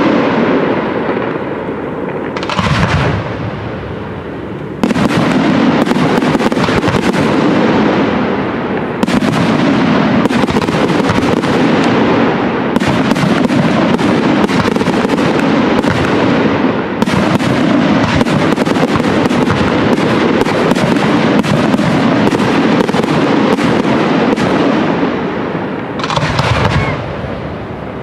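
Aerial fireworks: a shell bursts about three seconds in, then from about five seconds a dense, unbroken volley of rapid cracks and bangs runs for some twenty seconds, with another loud burst shortly before the end.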